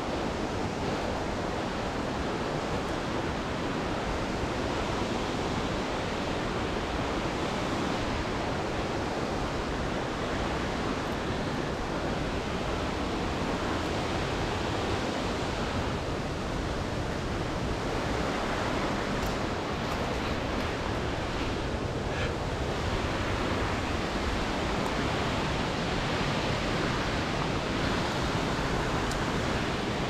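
Steady rushing noise of fast-flowing water, an even roar that does not change.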